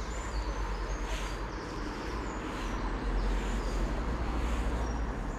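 Steady low rumble of city traffic, swelling slightly in the middle.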